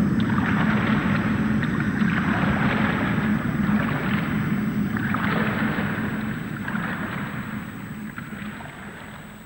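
Water splashing in repeated heavy surges as a man runs through a shallow river, fading away near the end.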